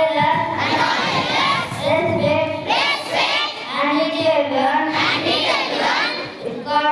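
A child singing a song into a microphone, with long held notes every second or so.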